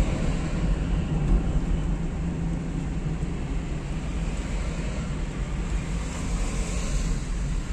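Steady engine and road noise heard from inside the cabin of a car driving slowly along a road.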